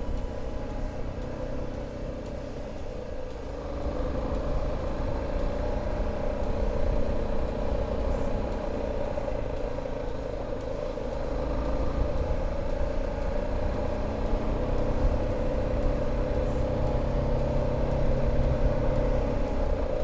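BMW G 310 GS single-cylinder motorcycle engine running steadily under way, over a low rumble. It gets a little louder about four seconds in and again in the second half.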